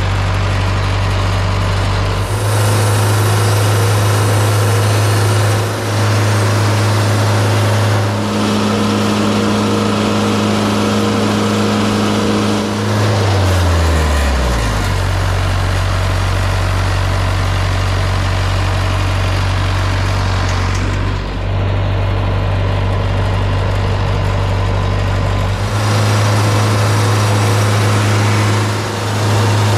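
Wood-Mizer LT50 sawmill's engine running loud and steady, its note falling in pitch about thirteen seconds in and holding lower after that.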